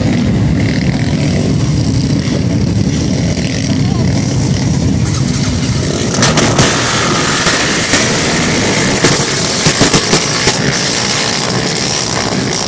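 A pack of racing quad bikes running together on a start line, a dense engine din; about six seconds in it rises to a louder, harsher racket with sharp peaks as the quads are revved hard and set off.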